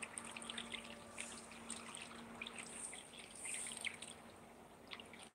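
Faint water dripping and trickling with small splashes as a fishing net is drawn out of a river on a pole.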